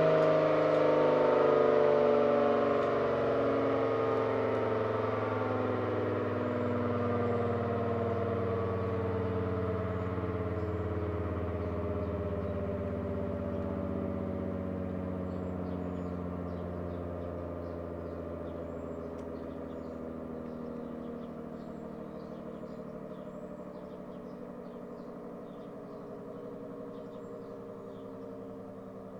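ACA Allertor 125 rotating siren with a 10/12-port rotor winding down after a full alert. Its chord of tones slowly falls in pitch and fades away as the rotor coasts to a stop.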